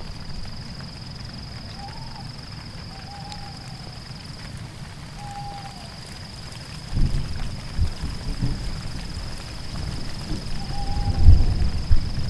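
Short hooting calls repeated every second or two, each dipping in pitch at its end, over a faint steady high whine. From about seven seconds in, low rumbling and thumps come in beneath them.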